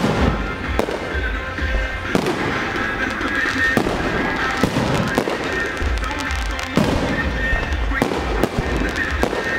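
Aerial fireworks display: a rapid series of bursts from shells and rising comets, one after another, over music played for the pyromusical show.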